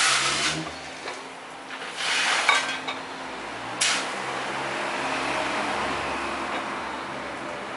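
New camshaft being slid through the bearing journals of a Chevrolet Corsa 1.0 8V cylinder head: metal scraping and clinking in short bursts, a sharp knock about four seconds in, then a longer rasp that slowly fades.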